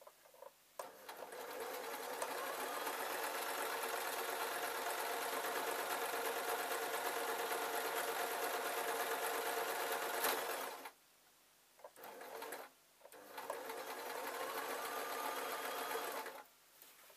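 Electric sewing machine stitching slowly and steadily along a seam. It stops about two-thirds of the way through, gives a short burst, then runs again for a few seconds before stopping.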